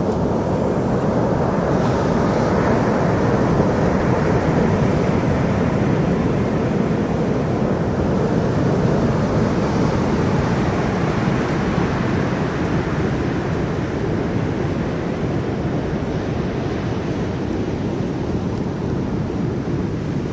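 Wind blowing across the microphone mixed with ocean surf breaking on the shore: a steady, loud low rush without let-up.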